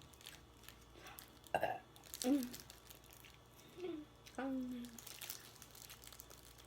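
A woman's short wordless vocal sounds, four brief noises falling in pitch, with small mouth and eating clicks between them. They are her reactions to the burning heat of very spicy ramen.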